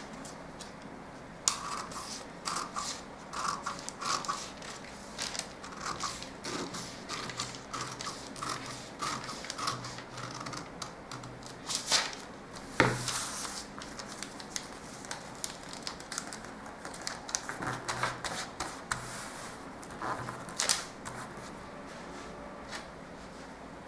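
Scissors snipping through brown pattern paper in runs of short cuts, cutting a bodice pattern apart along its slash lines, with the paper crinkling and rustling as it is cut and moved. A few louder cuts come about halfway through.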